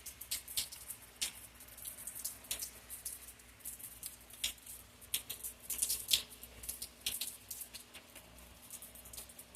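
Scattered raindrops pattering, heard as irregular sharp ticks a few times a second, with no thunder.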